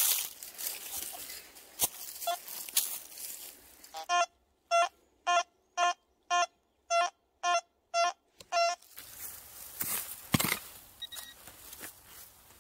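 Quest Q30 metal detector sounding a target tone: nine short, identical beeps about two a second as the coil sweeps back and forth over a buried metal object, its screen reading 78. Before the beeps come rustling steps in dry pine needles and leaves; after them, scraping of a hand pick digging into the soil, loudest about ten seconds in.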